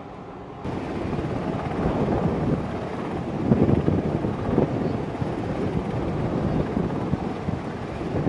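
Wind buffeting the microphone: a loud, rough, gusty rumble that comes in abruptly about a second in. Before it there is a quieter steady hum with a couple of faint tones.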